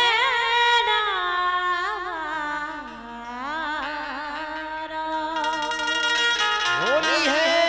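A woman singing long, wavering, ornamented notes of a Bundeli Holi folk song over steady held harmonium chords; a new phrase rises in near the end.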